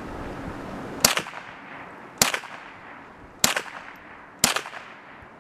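ISSC MSR MK-22 semi-automatic .22LR rifle firing four single shots a little over a second apart, each sharp crack followed by a short fading echo.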